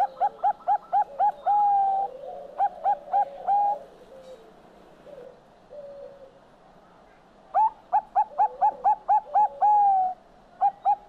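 Bangkok-strain zebra dove (perkutut) singing its staccato cooing song. Each phrase is a rapid run of short, upward-hooked coos ending in one longer held coo, repeated phrase after phrase. A pause of a few seconds in the middle holds only fainter, lower coos.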